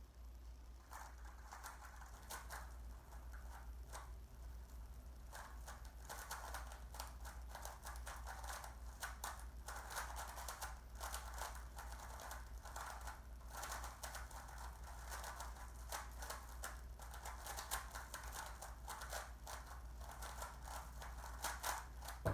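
Rubik's cube being turned fast in a speedsolve: a dense, irregular run of plastic clicks and clacks as the layers are twisted, starting about a second in, thinning briefly a few seconds in, then running on busily with a few sharper clacks near the end. A steady low hum sits underneath.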